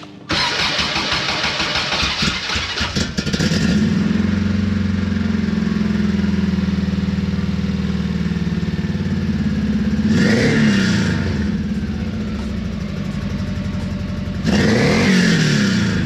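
Subaru flat-four engine in a 1968 VW Beetle cranks over and starts, then settles into a steady idle. It is revved up and back down twice, about ten seconds in and near the end, testing the freshly replaced and adjusted throttle cable.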